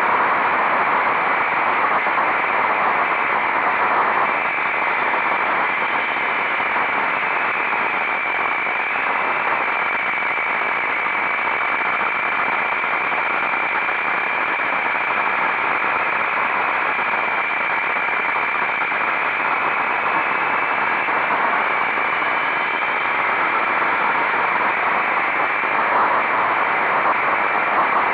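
Steady rush of wind noise on a camera riding a motorcycle at speed, with a faint steady whine underneath that rises and falls slightly.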